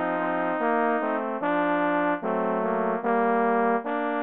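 Trombone trio playing slow, stately sustained chords, the harmony changing about every second with a short break between notes.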